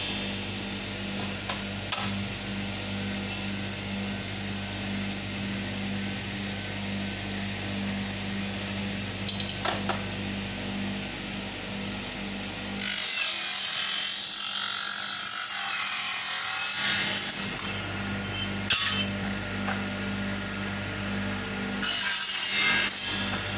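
Bench aluminium-profile cutting machine running with a steady hum, with a few knocks as the aluminium window profile is set in. About thirteen seconds in, a loud hissing cut with a wavering high whine lasts a few seconds as the machine cuts the aluminium, and a shorter cutting burst comes near the end.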